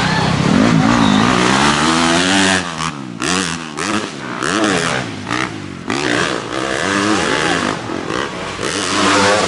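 Dirt bike engines revving up and down, their pitch rising and falling about once a second as the riders work the throttle. In places more than one bike is heard at once.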